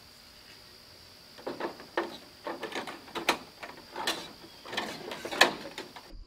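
A run of irregular sharp clicks and knocks, starting about a second and a half in, over a faint steady high-pitched tone.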